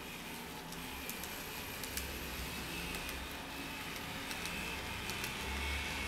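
N-scale model electric train running on its track: a low motor hum with scattered light clicks from the wheels on the rails, growing a little louder as the train approaches.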